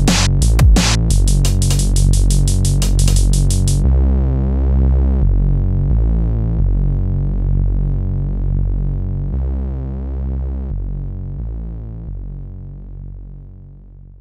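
Electronic music: a drum-machine beat with fast hi-hats over a low synth bass. The drums drop out about four seconds in, leaving held low synth chords that change every second or so and fade out near the end.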